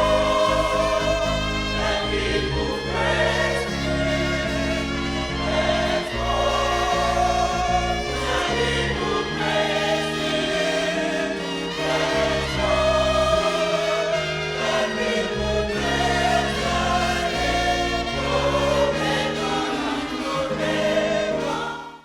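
Choir singing gospel music over held, sustained chords, cutting off abruptly at the end.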